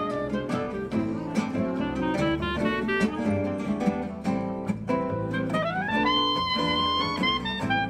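Clarinet playing a quick jazzy melody over two strummed acoustic guitars. About five and a half seconds in, the clarinet slides up and holds a long high note.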